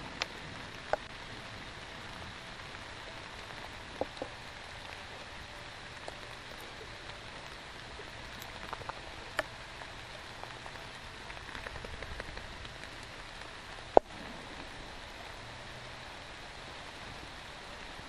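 Steady rain falling, a constant hiss, with scattered sharp taps through it, the loudest about fourteen seconds in.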